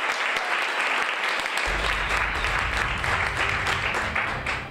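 Audience applauding: many hands clapping at a steady level, dying away at the end.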